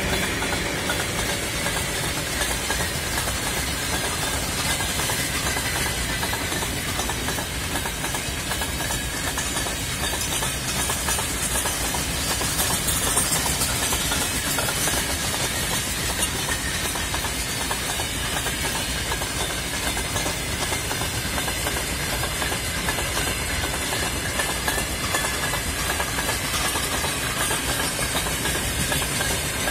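Freight train wagons rolling past at speed: a steady rush of steel wheels on rail with rapid clicking and knocking over the rail joints.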